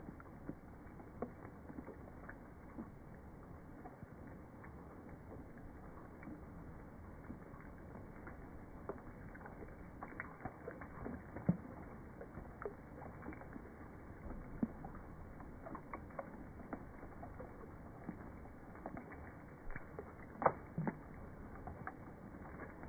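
Raindrops falling into a small lily pond, slowed down: a steady low hiss with scattered dull drips and plops, one louder plop about halfway and another near the end.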